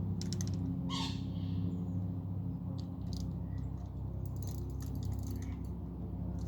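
A short bird squawk about a second in, with scattered clicks and light rattles of fishing tackle being handled, over a steady low hum.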